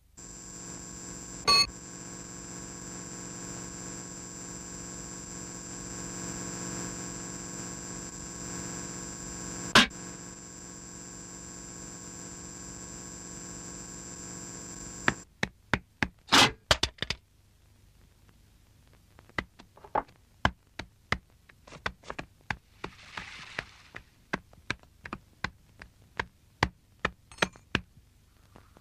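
A steady droning hum of several held tones, broken by two sharp knocks, cuts off suddenly about halfway through. A cluster of sharp clicks follows, then a long run of irregular sharp clicks and taps at about two a second.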